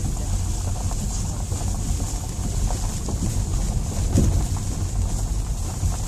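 Wind buffeting the microphone outdoors: a steady, heavy low rumble.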